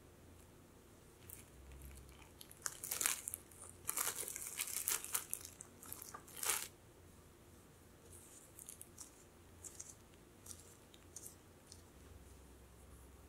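Plastic cling wrap crinkling and rustling as gloved hands roll a log of cookie dough up in it, in loud crackly bursts through the first half and fainter crinkles later.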